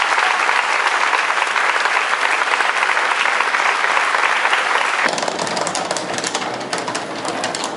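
A crowd applauding steadily for about five seconds. The applause cuts off abruptly and gives way to quieter street sounds with scattered clicks.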